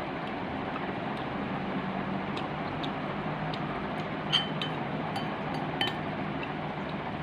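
Wooden chopsticks and a metal spoon clinking against a glass bowl of noodles: scattered light clicks, the two loudest with a short glassy ring, about four seconds in and again near six seconds, over a steady background hum.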